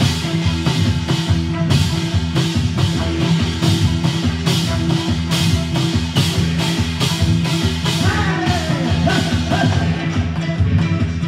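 Music with a steady, fast drum beat over bass and chords; a wavering melody line comes in about eight seconds in.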